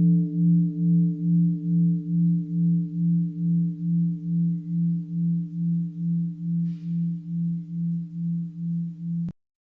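Mindfulness bell ringing out in a long, low, pulsing tone that wavers about twice a second as it slowly fades. The ring cuts off abruptly near the end.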